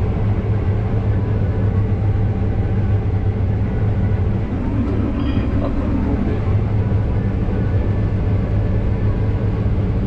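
Case IH Axial-Flow combine harvester running while harvesting soybeans, heard from inside its cab as a loud, steady low hum of engine and threshing machinery.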